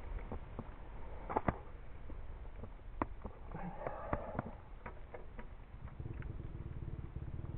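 Scattered light clicks and knocks, then about six seconds in a dirt bike engine comes in, running steadily at idle.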